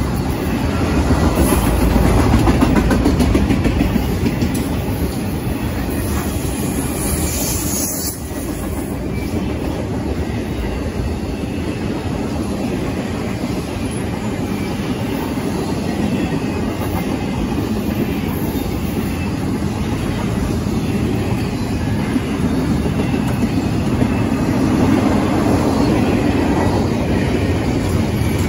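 Intermodal freight cars of a Norfolk Southern train, carrying highway trailers and double-stack containers, rolling past at speed. Their steel wheels make a steady, continuous noise on the rails.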